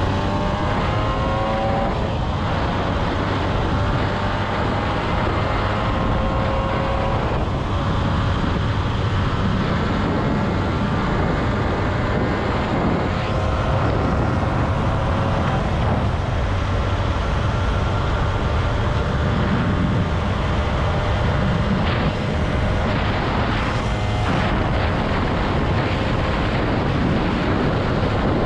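Honda NSR 125's single-cylinder two-stroke engine pulling a ride along the road: its pitch rises and drops back at gear changes about two and seven seconds in, then runs steadily. Heavy wind rush on the microphone lies under it.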